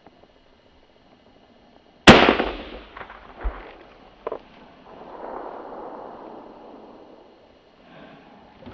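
A single .243 rifle shot about two seconds in, a sharp crack that then rolls away in a long echo, followed by a few lighter knocks.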